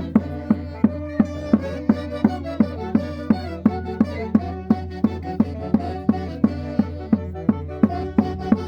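Andean folk band music from the Mantaro Valley: a steady drum beat, about two and a half strokes a second, over a held low bass note, with melody instruments on top.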